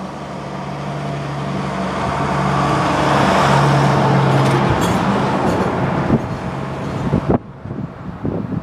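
A motor vehicle passes close by on the road: engine hum and tyre noise build to a peak about three to four seconds in, then ease off, and the noise cuts off suddenly about seven seconds in.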